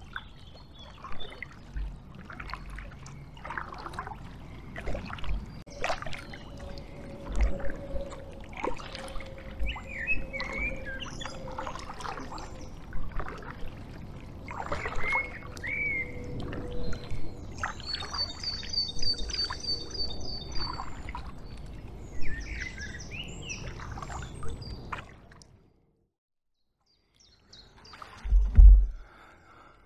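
Kayak paddle strokes dipping and splashing in the river, with water dripping off the blades, while songbirds call, including a rapid high trill about two-thirds of the way through. The sound cuts out abruptly near the end, then a single low thump.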